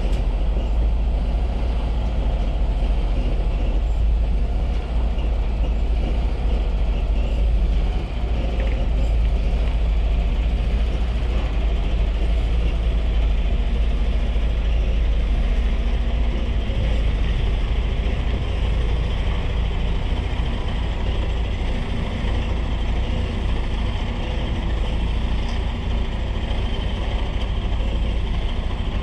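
Diesel engine of a Freightliner Cascadia semi-tractor running steadily at low speed as the truck maneuvers, a continuous deep rumble.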